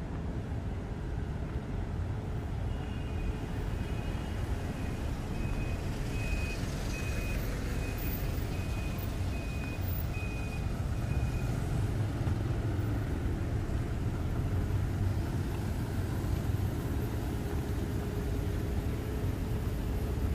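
Steady low rumble of city street traffic, cars and motorbikes passing. From about three seconds in until about eleven, a short high electronic beep repeats about every 0.7 seconds, like a vehicle's warning beeper.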